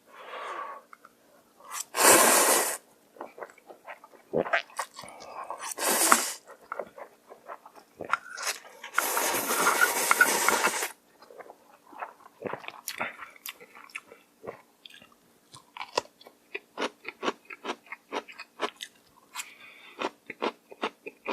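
Close-miked eating of noodles: three loud slurps, the last about two seconds long, followed by rapid chewing with many small crunches.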